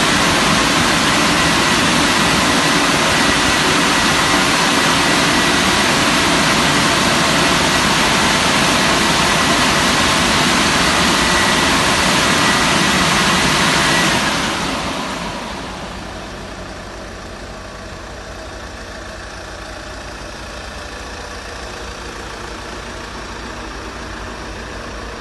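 Touchless automatic car wash machine running with a loud, steady rushing noise and a thin high whine. About fourteen seconds in it winds down over a couple of seconds, leaving a quieter low hum.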